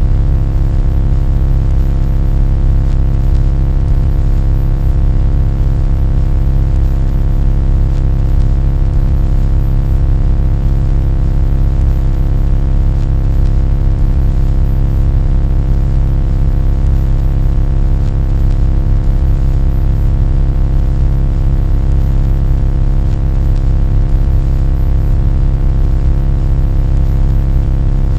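Loud, steady low drone with many even overtones, holding the same pitch and level throughout.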